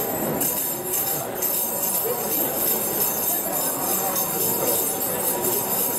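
Crowd murmuring, with a continuous high metallic jingling over it.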